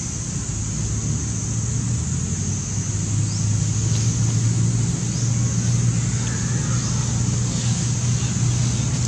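A motor's steady low hum, like a vehicle engine running nearby, a little louder after about two seconds, over a constant high hiss, with a few faint short chirps.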